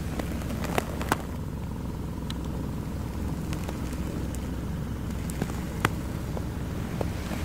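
Hyundai Sonata 2.4 GDI four-cylinder engine idling steadily, heard from underneath the car along the exhaust pipe, with a few sharp clicks about a second in and again near six seconds.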